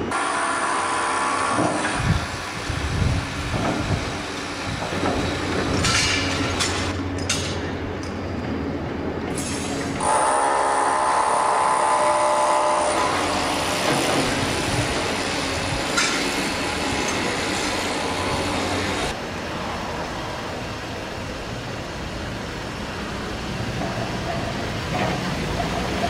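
Construction site noise: heavy machinery running steadily, with a high whine that stands out for a few seconds about ten seconds in.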